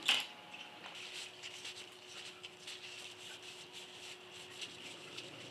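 A short knock at the very start from the camera being handled, then quiet room tone with faint rustles and small ticks as a cloth wipes a suspension fork's lower legs, over a faint steady hum.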